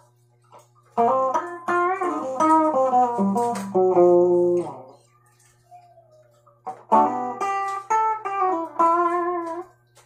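JCraft Telecaster-style electric guitar on its bridge pickup, played clean with no effects through a small 10-watt practice amp. It plays two phrases of quick picked single notes, the first starting about a second in and the second near seven seconds, with a short pause between them. A steady low hum sits underneath.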